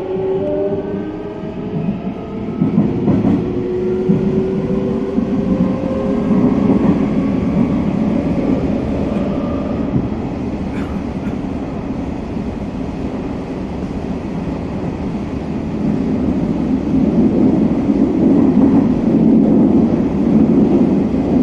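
Running sound heard inside a Hanshin 1000-series electric train's motor car: a steady rumble of wheels on rail. During roughly the first ten seconds the traction motors give a whine of several tones that shift in pitch, and the rumble grows louder again in the last few seconds.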